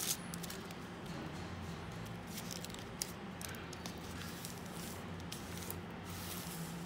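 Masking tape with a plastic backing being handled and pressed down by hand onto a car's roof-edge trim strip: soft rustles and a few short crackles over a steady low hum.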